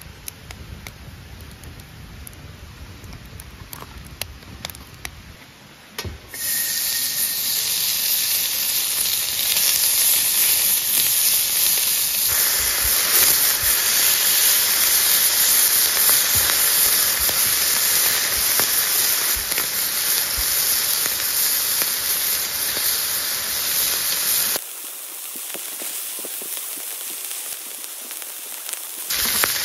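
Wood fire crackling in a fire pit with scattered pops. About six seconds in, a loud, steady sizzle starts as pork belly fries on a griddle over the hot wood fire. The sizzle goes quieter for a few seconds near the end.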